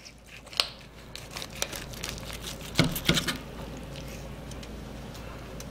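Knife cutting through the crisp skin and joint of a roast whole chicken as the leg is pulled away from the body: crackling, tearing and squishy meat sounds with a few sharp clicks, loudest about three seconds in.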